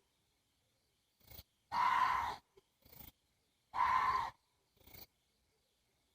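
Water deer giving two harsh, hoarse screaming calls about two seconds apart, each about half a second long, with a few much fainter short sounds between them.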